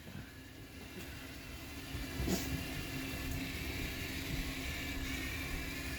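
Lego Mindstorms robot's small electric motors and gears whirring steadily as it drives, building up about a second in, with one click a little after two seconds.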